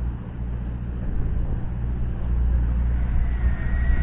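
Steady low hum of a fishing boat's machinery running. A faint, thin high whine comes in near the end.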